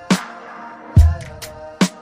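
Background music with a hip-hop style beat: sustained synth tones over sharp snare hits and a deep kick drum about a second in.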